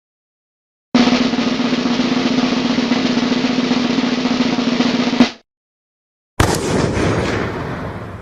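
Snare drum roll lasting about four seconds, stopping abruptly. About a second later comes a single loud crash hit that rings and fades away.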